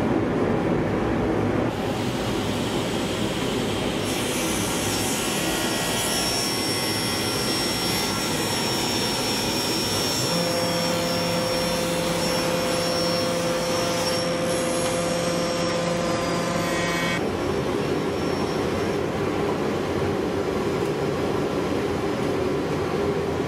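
Table saw with its dust collection running, a loud steady machine drone, as a board on a crosscut sled is fed through the blade. From about four seconds in until about seventeen seconds a steady higher whine rides on top, then drops out.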